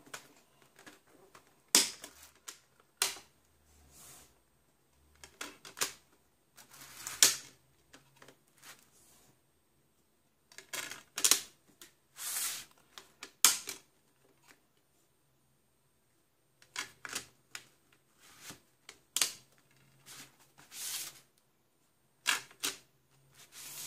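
Plastic DVD disc trays and discs being handled: scattered sharp clicks, clacks and short rustles as the discs are pressed and lifted off their hubs, with a pause of a few seconds a little past the middle.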